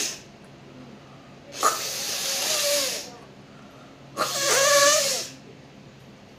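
A woman blowing her nose hard twice, each blow a sustained noisy blast of over a second that starts sharply and carries a voiced tone.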